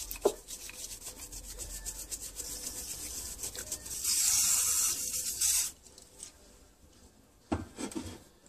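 Quick rubbing and scraping strokes on a small metal brake lever. About four seconds in, an aerosol can of spray lubricant hisses for about a second and a half onto the lever's pivot. Near the end come a few light knocks.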